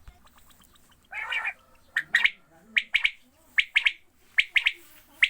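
Quail calling: one harsh rasping note about a second in, then a steady run of quick two-to-three-note calls repeated about every 0.8 s.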